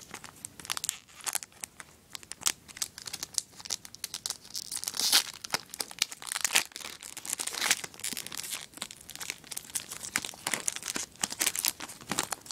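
Foil Yu-Gi-Oh Premium Gold booster pack wrapper crinkling in the hands and being torn open, a dense run of sharp crackles with the loudest tear about five seconds in.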